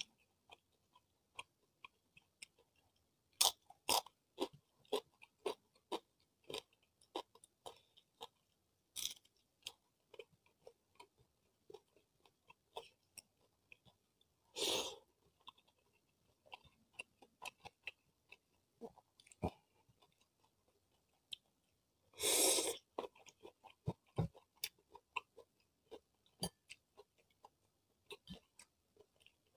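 Close-miked eating sounds from a person eating rice and fish by hand: a steady run of wet chewing clicks and mouth smacks. Two longer, noisier sounds come about halfway through and again about three-quarters through.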